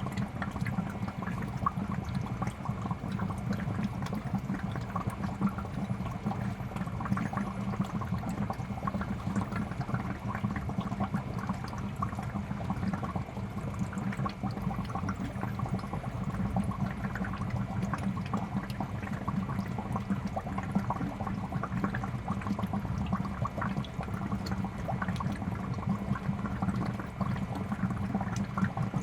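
Aquarium water in a fish tank bubbling and trickling steadily, a continuous churn of small splashes over a low rumble.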